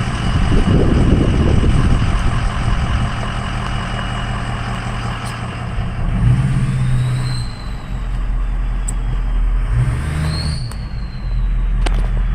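Steady rumble of a car on the road, with the low engine and road hum shifting in pitch a couple of times.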